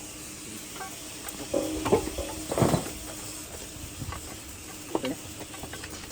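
Hand tools working on a diesel engine under teardown: scattered light clicks and knocks, with a louder scrape about two and a half seconds in, over a steady hiss.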